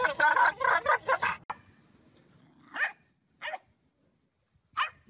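A dog making a strange warbling, gobble-like vocal noise in rapid pulses for about a second and a half. After a short pause come three short, sharp barks.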